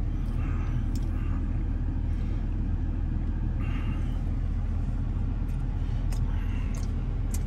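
Steady low hum of a vehicle engine idling, heard from inside the cab, with a few faint clicks and rustles of hands pulling a burger apart over a paper plate.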